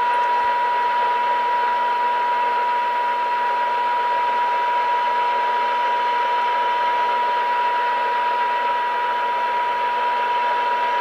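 A 1930 Philco Model 20 tube radio's loudspeaker sounding a steady high test tone over static hiss, with a faint low hum underneath, while an RF stage trimmer is tuned for peak signal during alignment.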